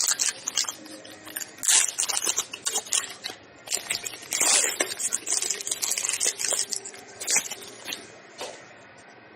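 A trading-card pack's wrapper being torn open and crinkled, with the cards inside sliding and being handled: irregular crackly rustles that die down near the end.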